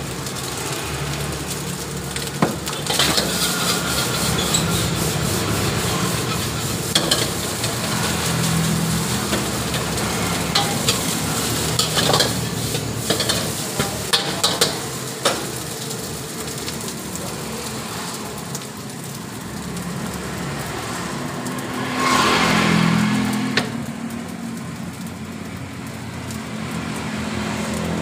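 Fried rice sizzling in a steel wok while a metal spatula stirs and scrapes it, with frequent sharp clinks of metal on the wok. The sizzle swells louder for a moment about three-quarters of the way through.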